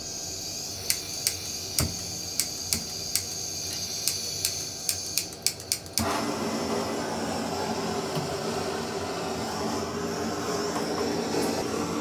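Hand-held gas blowtorch being lit: gas hissing while the igniter clicks about ten times, then the flame catches about six seconds in and burns with a steady rushing sound.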